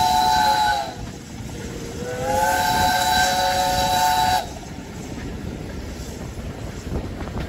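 Steam whistle of BR Standard Class 5 locomotive No. 73082 Camelot giving two blasts for a whistle board, a short one ending about a second in and a longer one from about two to four and a half seconds in, each sagging in pitch as it shuts off. Under and after it, the train's steady running noise on the rails.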